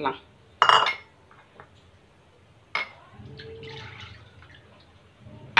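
Orange juice poured from a glass into a stainless steel bowl, a soft splashing trickle lasting about a second and a half. It comes after a short clatter near the start and a click, with another click at the end.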